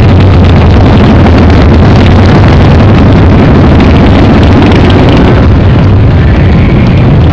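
Engines of several cruiser and touring motorcycles running as the bikes ride past close by one after another. The sound is very loud, at the edge of overloading the recording.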